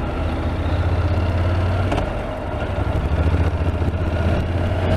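Honda NC750X parallel-twin motorcycle engine running at low revs under the rider, with road and wind noise. The drone eases slightly about halfway through, then picks up again.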